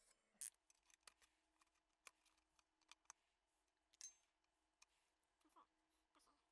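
Near silence broken by faint, scattered clicks and light taps as thin sheet-metal stove parts and a tape measure are handled. The sharpest click comes about half a second in, with another near four seconds.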